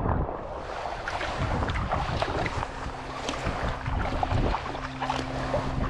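Sea kayak under way: paddle blades splashing and water washing along the hull, with wind buffeting the microphone. Low steady notes of background music come in about halfway.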